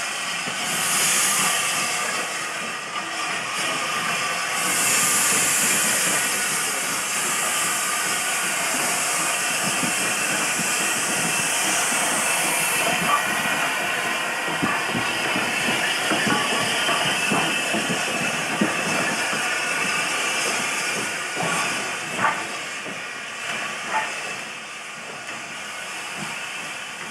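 Ex-North London Railway 0-6-0 tank engine No. 58850 moving slowly at close range with steam hissing: a short burst about a second in, then a longer spell from about five to thirteen seconds. Several sharp metallic clanks follow in the second half as it rolls on.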